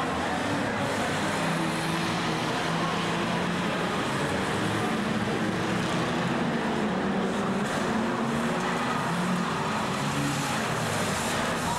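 Engines of several banger-racing cars running and revving at once around the track: a steady mix of engine noise with overlapping, shifting pitches.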